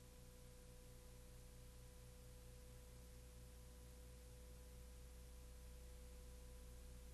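Near silence: a faint, steady hum and hiss from the recording's noise floor.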